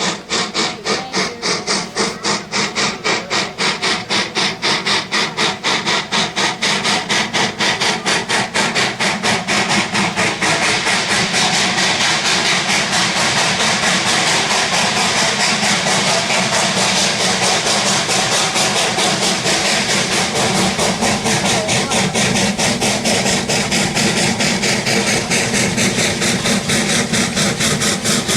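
Steam locomotive chuffing in a fast, even rhythm that quickens until the beats run together into a steady rushing sound after about ten seconds, as the train gathers speed.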